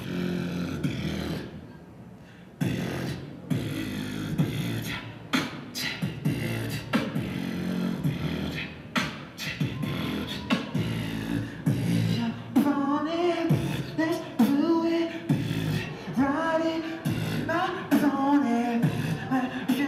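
Live beatboxing: rhythmic vocal percussion of sharp snare-like clicks over deep bass hits. About twelve seconds in, a voice singing short phrases that rise and fall joins the beat.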